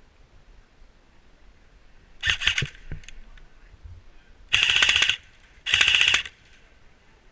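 Krytac CRB airsoft electric rifle firing three short full-auto bursts, a rapid mechanical rattle of shots. The first burst is shorter and quieter; the second and third are longer and louder, about a second apart.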